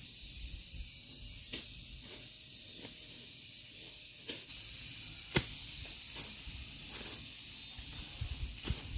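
A steady high hiss that grows louder about halfway through, broken by a few sharp knocks or snaps, the loudest a little past halfway.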